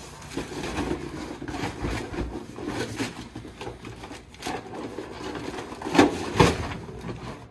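Cardboard box packaging being handled: flaps and inserts scraping and rubbing with irregular rustling, and a few louder knocks, the strongest two close together about six seconds in.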